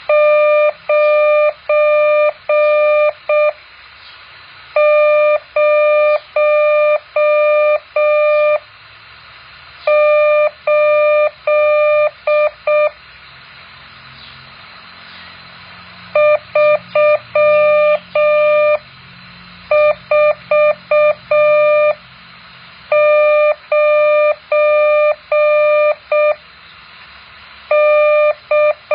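Morse code practice tone: a single-pitched beep keyed on and off in dots and dashes. It is sent in groups of characters with pauses of a second or more between groups, over a faint steady hiss.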